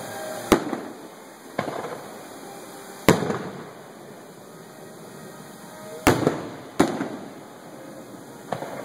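Aerial firework shells bursting: six sharp bangs at uneven intervals, each trailing off in an echo.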